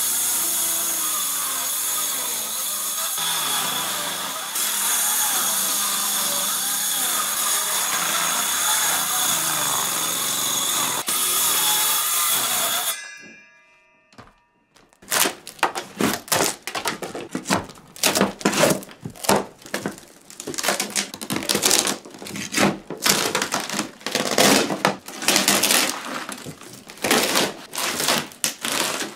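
Circular saw running steadily as it cuts along wooden floorboards, then winding down with a falling whine about thirteen seconds in. After a short pause comes a run of irregular knocks, scrapes and crackles.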